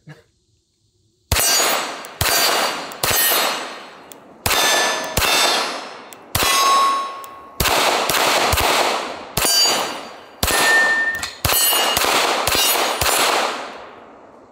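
Staccato P 2011 9mm pistol firing about fifteen shots in a string, roughly one every half second to a second, starting about a second in. Several hits set the steel targets ringing with a clear tone after the shot.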